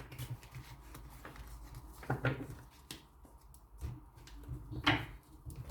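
Quiet handling noises: three short soft taps or rustles about two and a half seconds apart, over a low steady hum.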